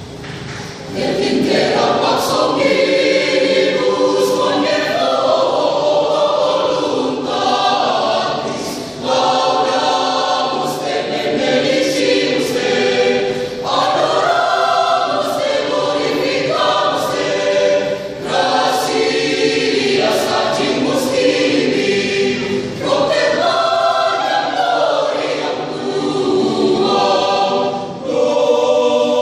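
Catholic youth choir singing a church piece in full voice, entering about a second in and moving through phrases with short breaths between them.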